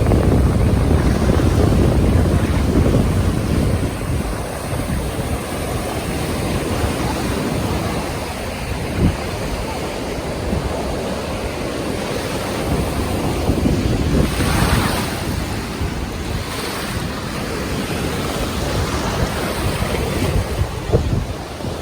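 Lake Huron waves washing onto a sandy beach, with wind buffeting the microphone in low rumbles. One wave breaks with a brighter hiss about two-thirds of the way through.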